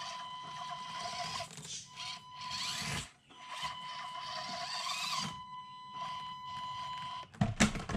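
Stock Axial SCX24 Deadbolt 1/24-scale crawler's small electric motor and geartrain whining as it drives up a steep ramp. The whine cuts out briefly about three seconds in, then runs again. A short clatter near the end as the truck falls over.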